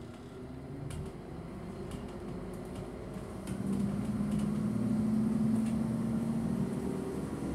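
Passenger train running, heard from inside the coach: a steady rumble with a low hum that grows louder about halfway through, and a few light clicks.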